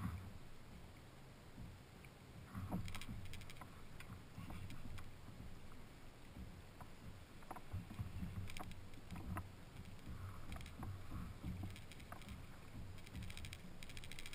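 Water sloshing and knocking against a sit-on-top fishing kayak's plastic hull while a fish is fought on a bent rod. Short bursts of fast clicking from the spinning reel come three or four times.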